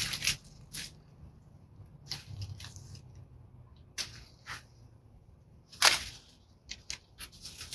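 Long-handled Fiskars loppers snipping through woody rose canes: a handful of separate sharp cuts, the loudest about six seconds in, among faint crackling of dry stems and leaves.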